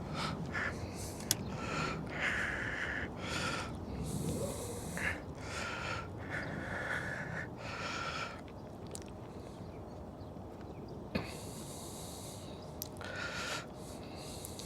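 A person breathing noisily through the nose in short puffs, about a dozen of them, fewer after the middle. One sharp click about eleven seconds in.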